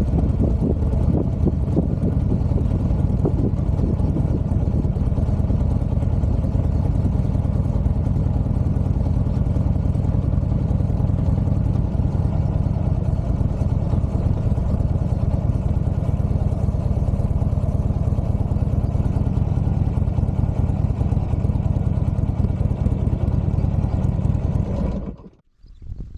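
Buell XB12R motorcycle's air-cooled V-twin engine running at a steady speed. The sound cuts off abruptly about a second before the end.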